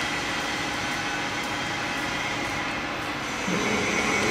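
A small welding positioner's electric motor and worm gearbox running steadily, with a faint high whine over an even mechanical noise. A lower hum joins about three and a half seconds in.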